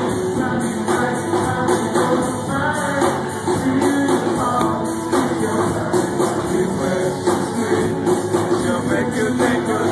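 Loud dance music with a singer and drums playing steadily.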